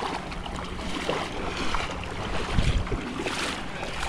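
Wind rumbling on the microphone over the rush of surf and water around the boat, with a brief louder hiss of water a little after three seconds in.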